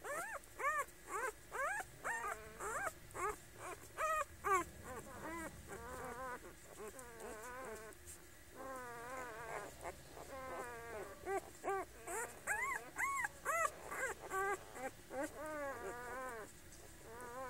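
Newborn puppies whimpering and squeaking: a steady string of short, high cries, each rising and falling in pitch, about three a second.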